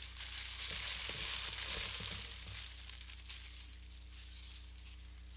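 Packaging wrap crinkling and rustling as it is handled and opened, loud for the first three seconds, then dying down.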